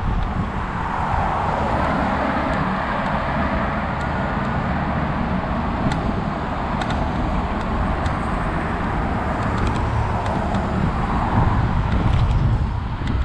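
Scooter ride along a city street: a steady rumble and hiss of tyres on asphalt and moving air, with a few light clicks.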